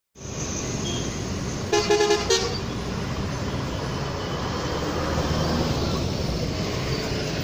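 Street traffic running steadily, with a vehicle horn honking twice in quick succession about two seconds in.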